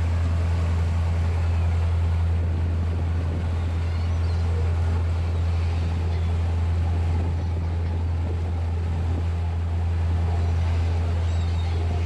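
Sightseeing boat's engine running with a steady low drone, under the rushing churn of the propeller wake and wind.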